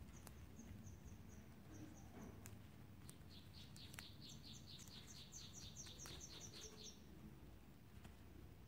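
Faint bird chirping: a quick run of high chirps, then after a short pause a longer run of two-note chirps, both at about five a second. A few faint clicks.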